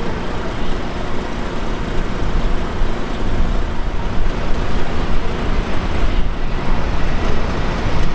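Jet airliner landing, an Airbus A320 with IAE V2500 engines, giving a steady rumbling roar mixed with heavy wind buffeting the microphone.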